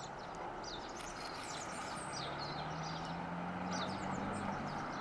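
Outdoor ambience: a steady background hiss with small birds chirping now and then, high and brief, over a faint low hum.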